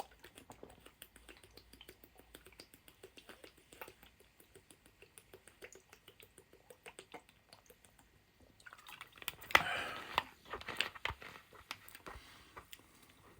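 Quiet mouth sounds of eating and drinking: soft clicks and smacks, then a louder stretch of swallowing and sipping fizzy drink about nine seconds in.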